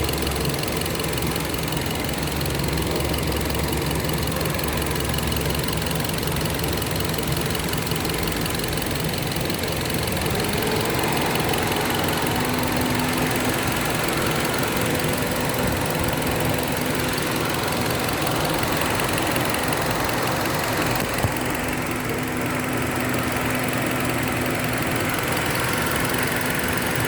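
Hyundai Accent petrol engine idling with the AC on and running unevenly with a misfire, which the mechanic puts down to extra air being drawn in at the intake manifold. The engine's low hum changes character about eight to ten seconds in.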